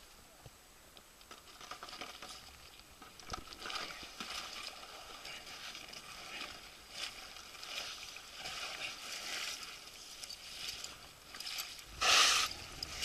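Icy water sloshing and splashing in a hole in the ice, mixed with the rustle of rescue drysuits, as a person in the water is worked out onto the ice and a rescue sled. There is a louder splash a little after twelve seconds in.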